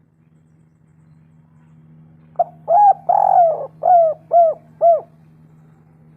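Spotted dove (tekukur) cooing one phrase: a short note, a longer drawn-out coo, then three quick coos that each rise and fall. A steady low hum lies underneath.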